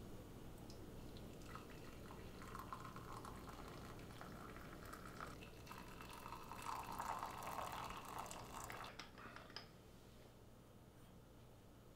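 Water poured from a stainless steel stovetop kettle into a ceramic mug: a steady pour that starts about a second and a half in, grows louder as the mug fills, and stops about ten seconds in.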